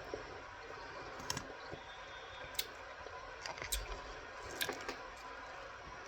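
Cornstarch being chewed: soft, scattered crunching clicks, about five over a few seconds, over a low steady hiss.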